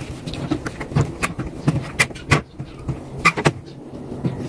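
Irregular clicks and light knocks of plastic parts and wiring being handled inside a washing machine's top panel, over a steady low hum.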